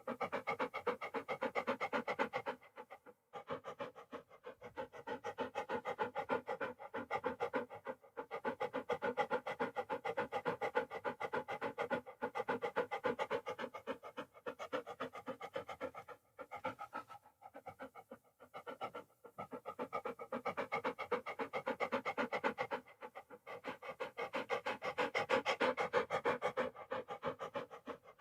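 A dog panting rapidly and rhythmically, with brief pauses every few seconds.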